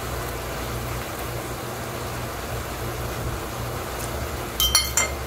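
Steady kitchen background hiss with a low hum, and a quick run of several sharp, ringing clinks near the end.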